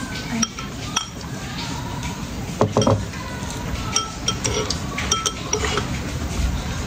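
Metal spoon clinking against a white bowl while scooping and stirring halo-halo shaved-ice dessert: a series of light, irregular clinks with a brief ring.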